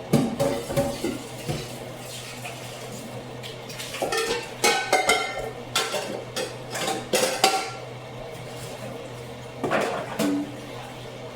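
Dishes, pots and metal cutlery clattering and clinking in three bouts: a few seconds of handling at the start, a longer run in the middle with some ringing metal clinks, and a short clatter near the end, over a steady low hum.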